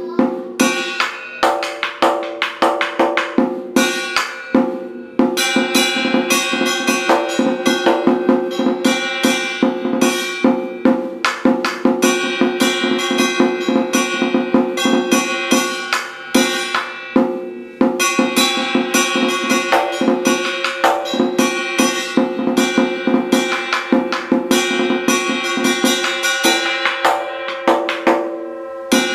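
Large Vietnamese drum (trống) beaten with two wooden sticks in a fast, continuous drumming pattern, the head ringing under rapid strokes; the playing stops at the very end.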